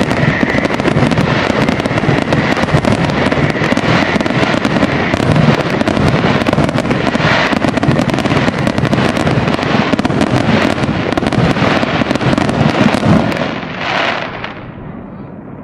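Fireworks going off in a dense barrage of rapid crackling pops and bangs, which eases off and fades about 13 seconds in before another burst right at the end.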